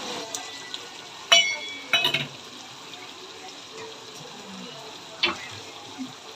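Goat pachauni sizzling as it fries in a metal pan while being stirred, a metal spoon clinking against the pan: two sharp ringing clinks around one and a half to two seconds in and another a little past five seconds.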